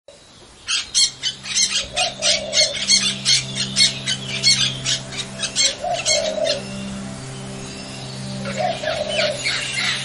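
Birds chirping rapidly, about four or five short calls a second, over soft relaxation music with long held low notes. The chirping stops about six seconds in, and a softer, denser twittering builds near the end.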